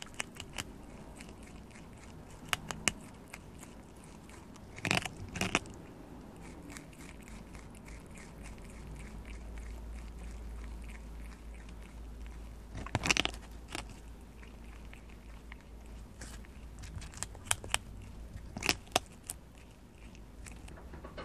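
Prairie dog biting and chewing into a whole ear of corn in its green husk: scattered sharp crunches, bunched in a few short clusters, over a low steady hum.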